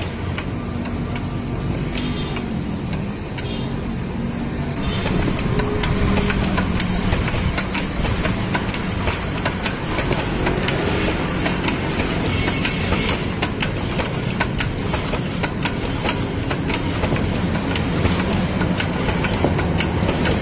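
Motorcycle engine running with its valve cover off, the rocker arms and valves ticking rapidly over the engine note. The engine gets louder about five seconds in.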